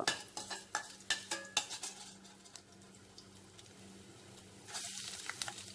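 A perforated steel spoon clinks and scrapes against a stainless steel pan, several times in the first two seconds, over the sizzle of chopped green chillies frying in hot oil as their water cooks off. About five seconds in the sizzle swells to a louder hiss.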